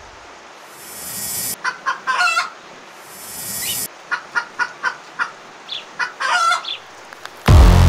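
A chicken clucking in short runs of quick calls. Each run comes after a rising hiss that cuts off sharply.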